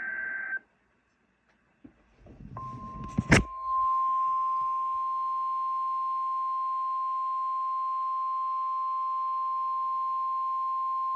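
A SAME digital header burst ends, followed by a short gap and a click. Then the NOAA Weather Radio warning alarm tone plays: one steady high beep held for about nine seconds, signalling that a warning message follows.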